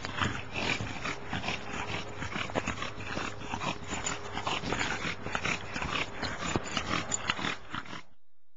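A bulldog panting hard, a quick irregular string of short rough breaths, typical after a steep climb; the sound cuts off suddenly near the end.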